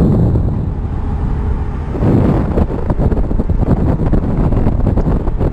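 Wind buffeting a camera microphone: a loud low rumble, with short knocks and rustles of handling starting about two seconds in.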